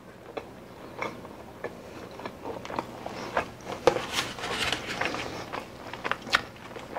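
Close-up chewing of a mouthful of chicken pita: irregular soft wet clicks and smacks, busiest in the middle of the stretch, with light rustling and taps as the pita and napkin are handled on a paper plate.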